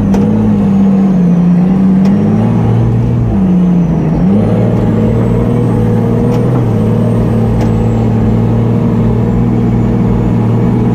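Monster truck's engine running loudly from inside the cab at fairly steady revs, easing off briefly twice, most clearly about four seconds in, then picking back up.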